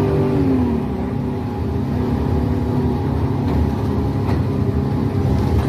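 Bus engine running steadily under way, heard inside the bus, its pitch dropping briefly near the start.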